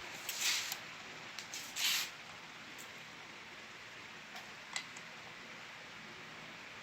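Handling of a power adapter and its wires: two short rustles in the first two seconds, then a few faint clicks over a steady low hiss.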